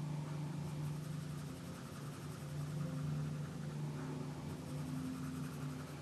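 Prismacolor coloured pencil scratching back and forth on paper, layering a dark background, over a steady low hum.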